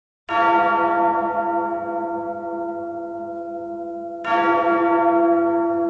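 A bell tolls twice, about four seconds apart. Each stroke rings on with a deep hum and fades slowly. This is the tolling bell that opens the song.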